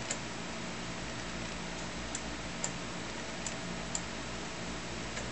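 Computer mouse button clicking a few times, mostly in pairs about half a second apart, like a press and release, over a steady hum of computer fans.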